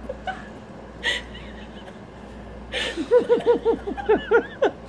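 A person laughing: a quick run of short 'ha' notes starting about three seconds in, after a breathy intake.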